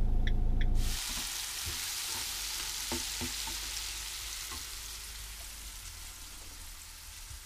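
Low vehicle rumble for about the first second, then an abrupt cut to food sizzling in a frying pan: a steady hiss that slowly fades, with a few faint clicks.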